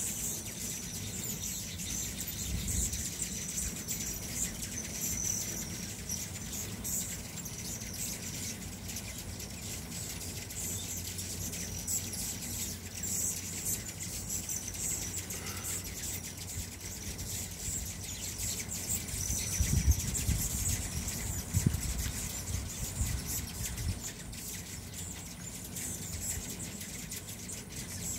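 Hummingbirds chirping in repeated high, squeaky notes around the feeders, over a low background rumble.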